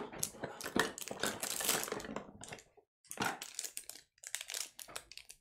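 Hands rummaging through a cardboard box of equipment: small hard items clicking, clattering and rustling in quick, irregular runs, with a couple of short pauses.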